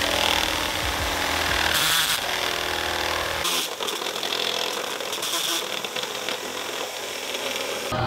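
Cordless drill running as its bit cuts a hole through the painted BMW E36 hood for a flush hood-pin latch. About three and a half seconds in the low part of the sound drops away and the grinding goes on higher and rougher, with brief louder surges.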